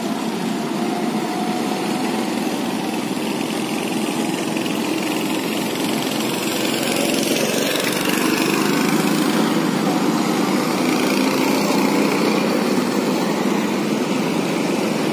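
Several go-kart engines running as the karts lap the track, a steady small-engine drone that grows louder about halfway through.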